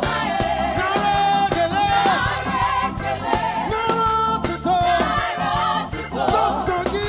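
Live gospel worship music: a band plays a steady beat with bass while voices sing a held, sliding melody.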